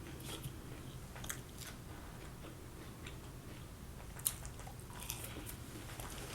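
Someone chewing and biting breaded spicy chicken nuggets: soft mouth sounds with small crunches and clicks, and one sharper click a little over four seconds in.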